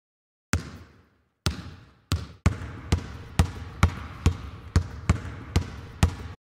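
A basketball bouncing on a hard floor, about a dozen bounces with an echoing tail after each. The first two come slowly, then the ball is dribbled steadily at about two bounces a second, stopping suddenly near the end.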